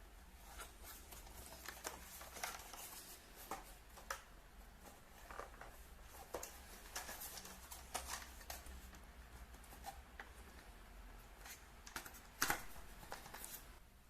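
Irregular light clicks and rustles of packaging and plastic parts being handled during an unboxing, with one sharper click near the end.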